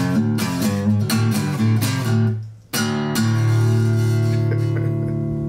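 Steel-string acoustic guitar playing a quick run of blues notes, then a single strummed chord about halfway through that is left to ring out.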